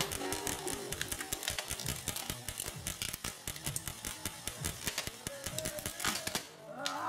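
M4-style airsoft rifle firing rapidly, a fast run of sharp clicking shots that thins out near the end.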